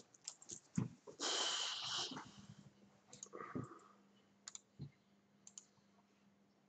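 Scattered clicks from a computer mouse and keyboard at a desk, with a loud rush of noise lasting about a second just after the first click. A faint low hum comes in about two seconds in.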